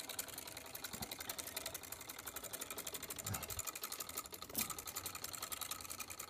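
Homemade magnet-wheel pulse motor running: a rapid, even clicking as the wheel spins past its coils and switching contacts. A few light knocks are mixed in, and a faint steady whine joins about halfway through.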